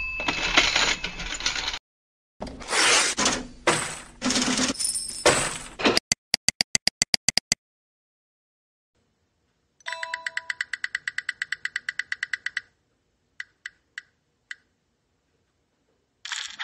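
Animation sound effects: bursts of rushing, swishing noise and a quick run of sharp clicks, then a prize-wheel ticker clicking rapidly, about seven ticks a second, as the wheel spins, slowing to a few last ticks as it comes to a stop. A short swish comes near the end.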